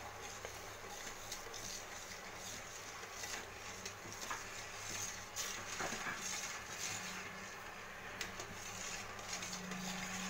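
Metal spoon stirring sugar into water in a stainless steel pot, scraping and with occasional light clinks against the pot, to dissolve the sugar for syrup.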